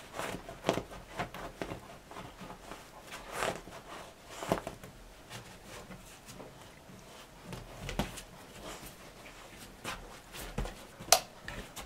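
German shepherd puppy scrabbling and nosing in a quilted bedspread against the wall, digging after a toy that has fallen behind the bed: irregular rustles and scratches, with a sharp click near the end.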